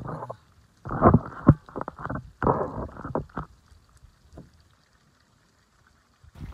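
Phone microphone rumbling and rustling in three bursts as the phone is handled and set down, with some wind buffeting; after about three and a half seconds it falls almost quiet.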